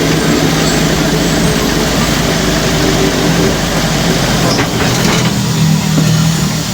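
Volare Fly 9 minibus's diesel engine running steadily, with a few faint clicks around the middle; the sound eases off a little near the end.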